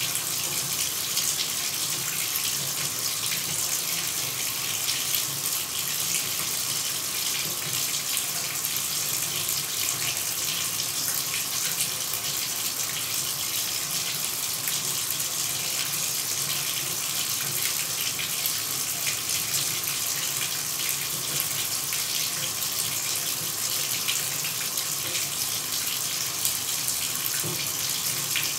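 Shower running: an even, steady hiss of water spray that does not change.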